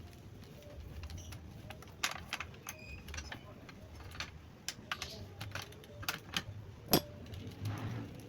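Metal tools and parts clicking and clinking in irregular, separate taps, with a louder knock about seven seconds in.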